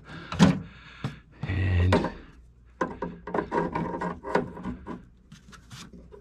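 Adjustable wrench knocking, clicking and scraping on a brass compression-fitting nut and ball valve as the nut is tightened onto copper pipe, with the valve held by hand against the turning. The clicks come thickest in the second half.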